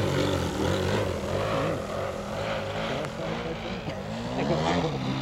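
A DA120 twin-cylinder two-stroke petrol engine with canister mufflers, turning a 28x10 carbon propeller on a 35% scale Edge 540 model aerobatic plane, running in flight. Its engine note rises and falls as it manoeuvres.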